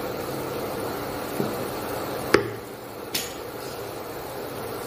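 Vegetable soup boiling hard in a pot, a steady bubbling hiss, while a wooden spoon stirs it. There are three sharp knocks of the spoon against the pot, the loudest a little past two seconds in.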